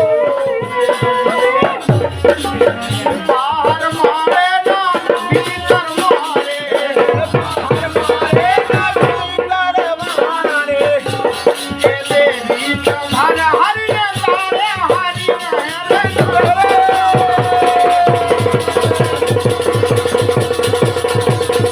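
Instrumental interlude of a Bundelkhandi rai folk song: a melody with wavering, bending pitch played over fast, dense rattling percussion.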